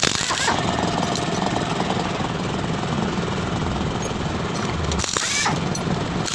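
Minerva R150 motorcycle engine running steadily with a rough sound, which the owner puts down to a worn piston, cam chain and camshaft bearing.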